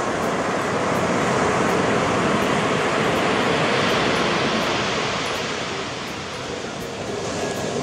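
Ocean surf breaking, a steady rush of water that swells, eases off about six seconds in, then builds again.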